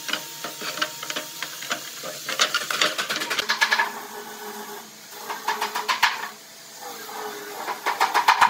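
A pencil scratching across pine boards in three bursts of quick back-and-forth strokes, marking the boards, after a few light wooden knocks as the boards are set on the pipe clamps.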